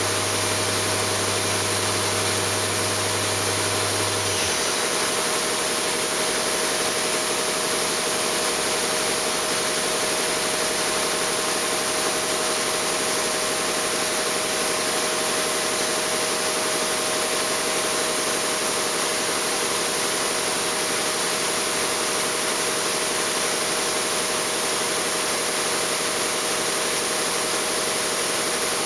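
Hitachi Seiki HG400 III CNC horizontal machining center running: a steady hiss with a few steady hum tones, and a deeper hum that stops about four seconds in.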